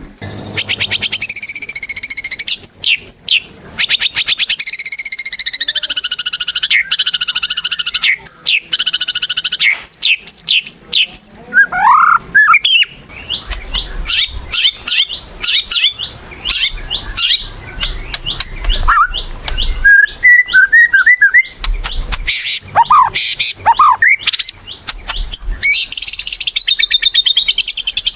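White-rumped shama (murai batu) in full, continuous song: fast rattling trills and buzzy chatter mixed with clear rising whistles.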